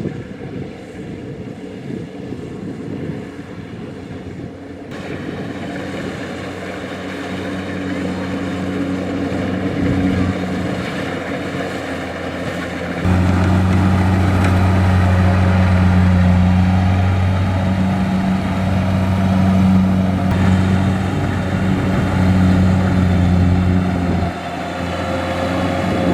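Kubota DC-70 combine harvester's diesel engine running steadily with a low hum. It grows clearly louder about halfway through and eases off again near the end.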